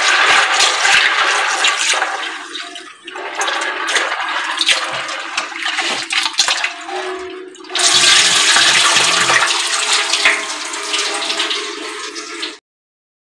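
Tap water running and splashing into a steel bowl of soaked black chickpeas in a steel sink, with hands swishing the chickpeas as they are rinsed. The flow is quieter for a few seconds in the middle, strong again from about eight seconds in, and cuts off suddenly near the end.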